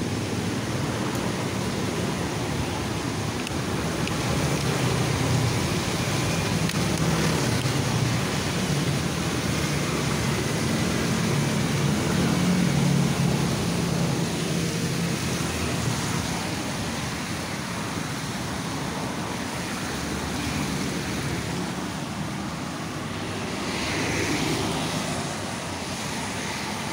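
Steady street traffic noise, a continuous whooshing rumble of passing vehicles, swelling briefly near the end.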